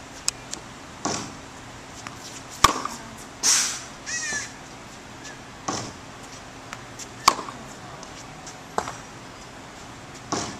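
Tennis balls struck with rackets in a groundstroke drill: a string of sharp pops, one every second and a half or so, with a gap near the middle.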